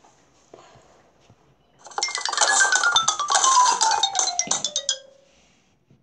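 Cartoon sound effect from a children's Bible story game: a rapid clatter of clicks under a whistle that slides steadily down in pitch and ends on a short held note, lasting about three seconds from two seconds in. It accompanies the animation of the ark being built.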